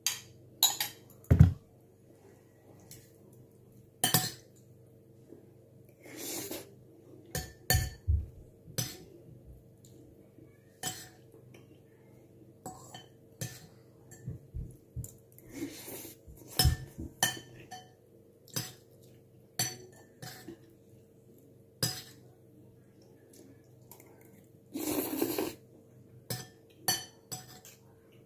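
Metal spoon and fork clinking and scraping against a ceramic bowl of noodles in irregular taps, with a heavier knock of a bowl on the table about a second in. A short swishing noise comes near the end.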